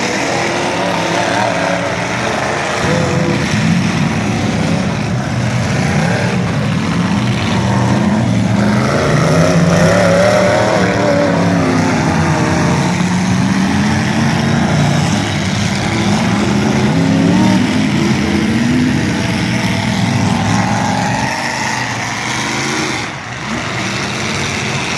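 Several demolition derby cars' engines running and revving, their pitch rising and falling over and over as the cars accelerate and slide through deep mud.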